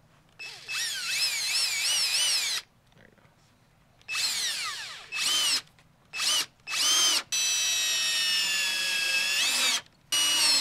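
Cordless 20 V drill driving screws into a wrapped trailer bunk board, run in about six bursts. Its motor whine rises and falls in pitch within each run, and the longest run, a steadier one of about two and a half seconds, comes in the second half.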